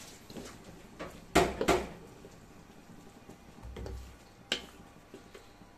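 A few sharp metal clanks of a spatula knocking against a wok while stir-frying, the loudest two close together about a second and a half in and another about four and a half seconds in.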